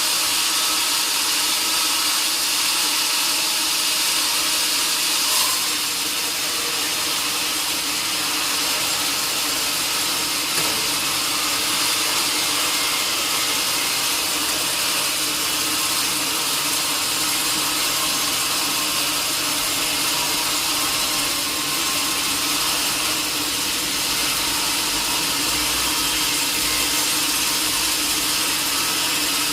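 Sawmill saw running steadily, cutting through a large log: a loud, even mechanical noise with a strong hiss.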